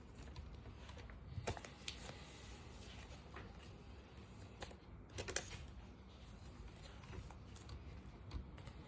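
Faint rustling and a few soft clicks of a trading card being handled and slid into a plastic card sleeve.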